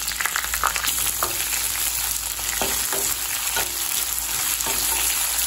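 Sliced onions sizzling in hot oil in a kadai, stirred with a wooden spatula that scrapes against the pan again and again over the steady sizzle.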